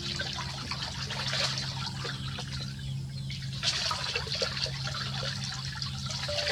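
Water running and splashing, a rushing noise that swells and eases, over a steady low hum.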